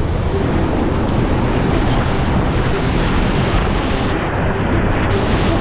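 Loud, steady rush of whitewater pouring through a river rapid and falls, sounding duller about four seconds in.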